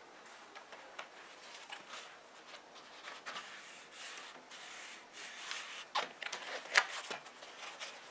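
Hands handling and turning over a foam-lined leather seat cover on a tabletop: leather and fabric rubbing and rustling, with a few sharper scuffs near the end.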